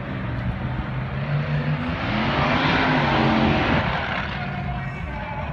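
A truck engine running, swelling to its loudest about three seconds in as its pitch rises and then falls, then easing back.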